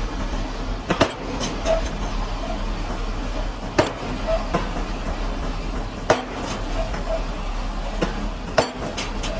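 Pile-driving hammer striking a pile: four sharp metallic blows about two and a half seconds apart, with smaller clanks between, over the steady running of the rig's engine.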